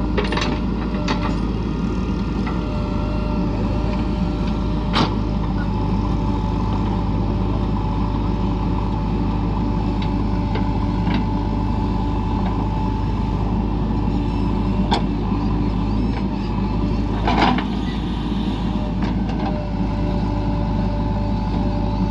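Heavy diesel machinery at a backhoe loading site running steadily. A few sharp knocks or clanks sound over it, the loudest about five seconds in and again about three-quarters of the way through.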